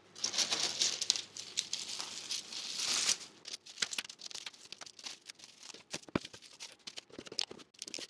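Plastic bubble wrap and a bubble bag crinkling as they are handled for about three seconds. After that come scattered light clicks and taps of small 3D-printed plastic keychains being dropped into the bag.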